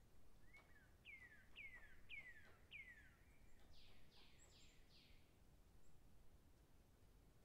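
A songbird singing faintly: a short note, then four clear notes each sliding down in pitch at about two a second, then a quicker run of four higher falling notes.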